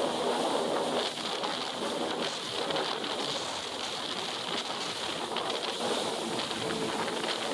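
Steady rush of wind and water spray from a jet ski under way.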